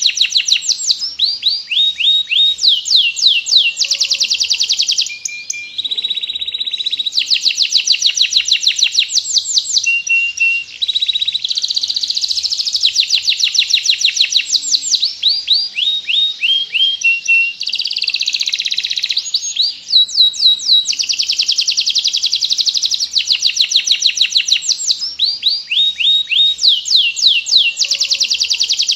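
Domestic canary singing a long, loud, continuous song of rapid trills and runs of repeated sweeping high notes, broken by a few short pauses.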